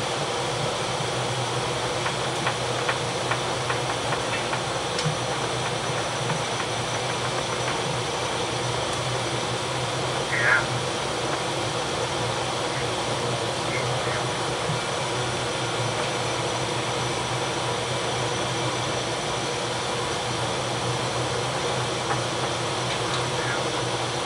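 Steady running noise of a steam-turbine frigate's propulsion plant machinery, heard in the engine room: an even roar with a constant low hum. A brief sharper sound stands out about ten seconds in.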